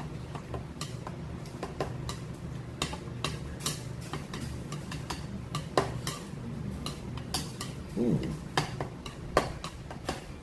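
Cutlery clinking and tapping against bowls and dishes as a meal of ramen is eaten, in irregular sharp clicks over a steady low hum. A short voice-like sound comes about eight seconds in.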